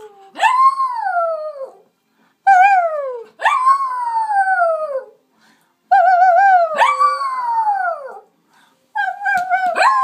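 Lhasa Apso dog howling in a duet with a person howling along: short wavering howls answered by long howls that rise and then slide down in pitch, three such exchanges with brief pauses between.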